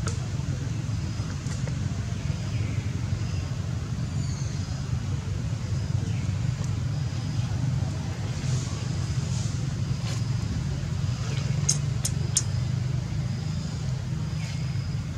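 Steady low rumble, with a few faint high chirps and three sharp high ticks close together about twelve seconds in.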